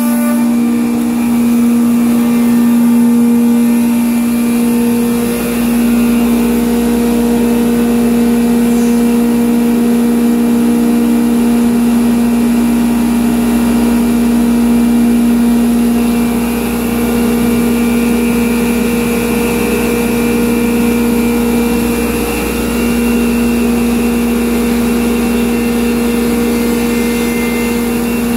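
Multicam 3000 Series CNC router running, its 10 HP spindle giving a loud, steady tone as it routes sheet panels, over a steady low rushing noise.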